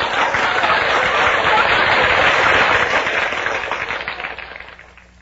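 Studio audience laughing and applauding, dying away near the end.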